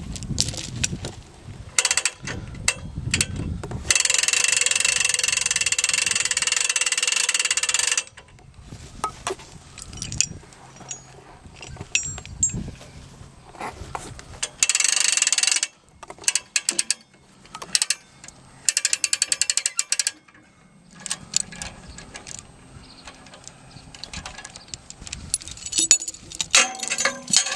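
Rapid ratchet clicking as a strap is tightened on a log arch to lift the log, loudest in a spell of several seconds about four seconds in, with shorter spells later. Between them come metal clanks and chain rattles from the steel log tongs and chain being set on the log.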